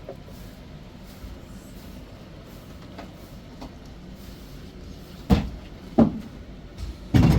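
Three loud thumps or knocks, about a second apart, in the last two seconds, after quiet background noise.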